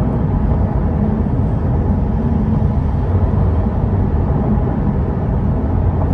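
Steady low drone inside the cabin of a 2022 Chevrolet Corvette C8 cruising at 70 mph in eighth gear: its 6.2-litre V8 turning at low revs, mixed with tyre and road noise.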